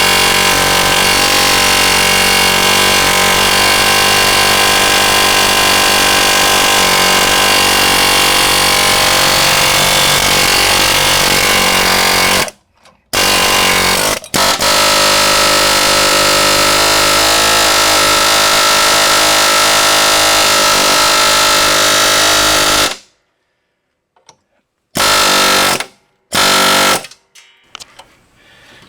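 Ingersoll Rand 114GQC pneumatic air hammer firing its chisel on a ball joint replacement job, a loud, rapid buzzing hammer in long runs. It stops briefly twice about halfway, runs again for several seconds, then fires only in a few short bursts near the end.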